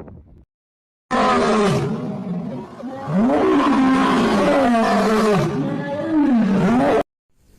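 A large animal's loud calls, several in a row, each rising and falling in pitch. They start suddenly about a second in and cut off abruptly near the end.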